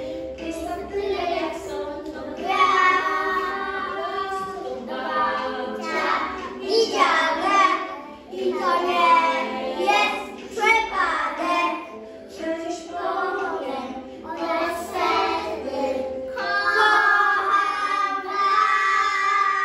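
A small group of young children singing a song together in unison.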